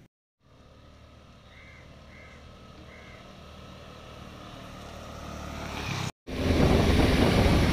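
A motor scooter approaching, its engine hum growing steadily louder, with three short faint chirps near the start. After a brief break, loud wind rush on the microphone and engine noise from riding on a scooter.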